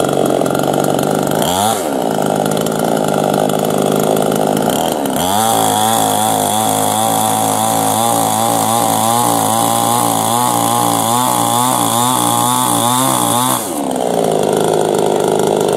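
Star Kut SKE-CS 22 two-stroke petrol chainsaw idling, with a brief throttle blip about two seconds in. About five seconds in it revs up and holds high revs, its pitch wavering under load as the bar cuts into a log. It drops back to idle about two seconds before the end.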